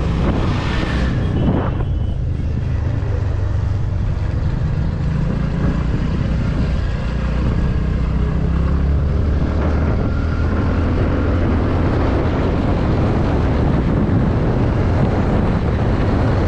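TVS Ntorq 125 scooter's single-cylinder engine running steadily under way, with wind rushing over the microphone. An oncoming vehicle passes about a second in.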